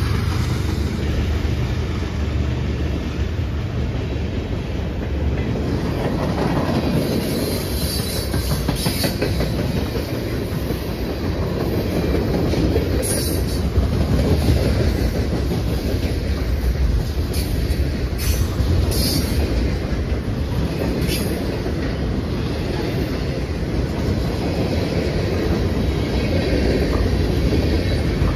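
CN freight train's cars, centerbeam flatcars loaded with lumber, rolling past at speed: a steady heavy rumble of steel wheels on rail, with a few brief high squeals from the wheels.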